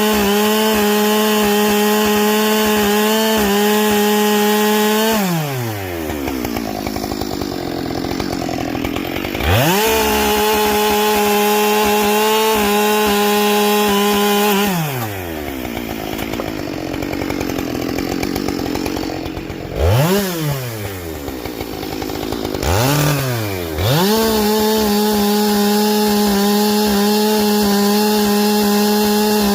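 Husqvarna 572 XP two-stroke chainsaw with a carbide chain, running at full throttle and twice pulling down as it cuts into wood: the engine pitch falls sharply under loud cutting noise for four or five seconds, then climbs back to full revs. Two quick revs follow the second cut, before it settles at full throttle again.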